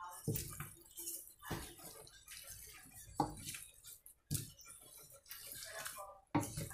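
Wooden spatula stirring and tossing rice noodles and vegetables in a large nonstick wok, with irregular scrapes and knocks against the pan.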